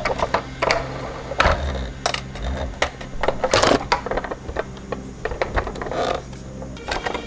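Plastic toy car-carrier truck being handled and turned over: irregular clicks, clacks and knocks of its hard plastic trailer and panels, with small clinks, the loudest clatter about three and a half seconds in.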